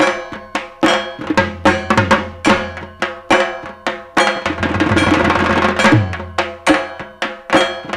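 Dhak, the Bengali barrel drum of Durga Puja, played with thin sticks in a fast repeating pattern of sharp strokes, about two to three a second, with a dense roll about halfway through.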